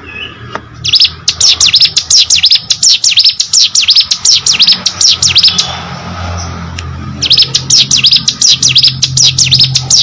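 Ciblek gunung (hill prinia) singing hard in two long bursts, a fast run of sharp, high, downward-sweeping notes about five or six a second. There is a short pause of about a second and a half between the bursts.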